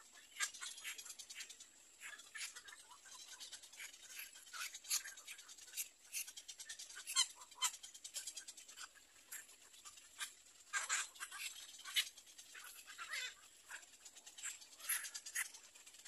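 Little egret chicks calling in the nest: a string of short, high-pitched chirps and ticks at an irregular pace, some briefly sliding down in pitch, with a louder flurry a little past the middle.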